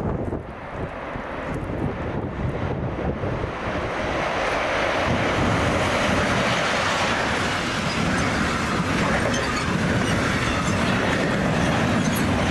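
A train approaching and running past, its noise building about four seconds in and then holding steady. Wind on the microphone is heard at the start.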